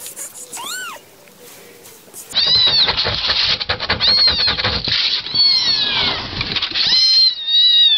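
Young kittens meowing: a single meow about a second in, then several tiny kittens mewing high and shrill over and over, their calls overlapping, with clicking underneath and one longer, drawn-out mew near the end.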